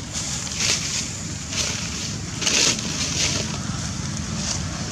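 Wind rumbling on the microphone, with five or six short rustles of dry fallen leaves, the loudest about halfway through.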